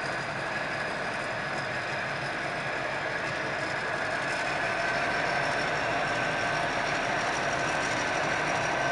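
Diesel locomotive hauling a passenger train slowly toward the listener: a steady engine drone with a high whine over it, growing a little louder as it approaches.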